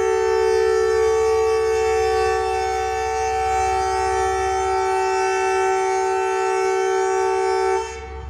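Diesel locomotive air horn sounding one long, steady multi-tone blast for nearly eight seconds, cutting off suddenly near the end, over a low rumble.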